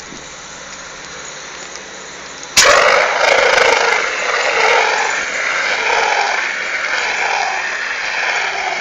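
A hand-held fire extinguisher discharging: a loud, steady hiss that starts suddenly about two and a half seconds in and keeps going. Before it, only a low steady outdoor rush.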